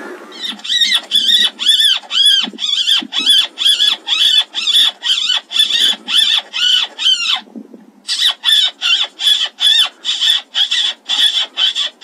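A rapid, even string of shrill squealing animal calls, two to three a second, each call rising and then falling in pitch, with a short break about seven and a half seconds in.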